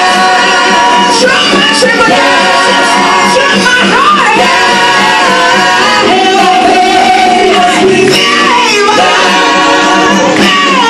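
Live gospel song: a man and several women singing into microphones over amplified band accompaniment, loud and continuous.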